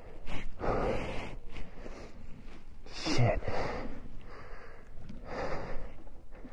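A rider's heavy breathing: three hard, noisy breaths about two seconds apart, the middle one with a low grunt. It is the sound of exertion while fighting an electric dirt bike up a slippery, muddy slope with no traction.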